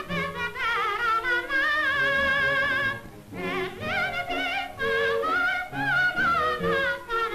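A lyric-coloratura soprano sings a high operatic line with wide vibrato over instrumental accompaniment, on an archival 1940s–50s recording. The voice breaks off briefly about three seconds in, then resumes.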